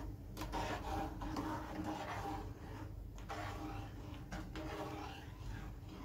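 Steel spoon stirring hot milk in an aluminium kadhai, with a few soft scrapes and clinks of the spoon against the pan.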